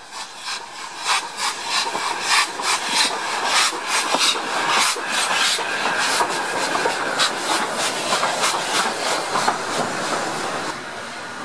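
Two steam tank locomotives, led by BR Standard Class 4 2-6-4T No. 80072, working away under steam: quick, even exhaust chuffs about four a second over the hiss of open cylinder drain cocks. The sound drops a little near the end.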